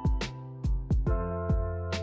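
Background music: held instrumental chords over a drum beat that strikes about twice a second.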